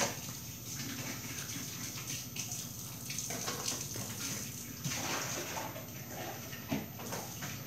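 Silicone spatula stirring sticky slime in a plastic tub: soft wet squelching and scraping, swelling briefly a few times over a faint steady hiss.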